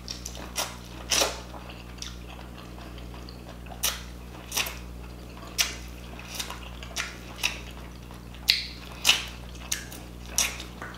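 Close-up eating sounds of a person biting and chewing corn on the cob coated in seafood-boil sauce, with short sharp mouth clicks at irregular intervals, about one a second.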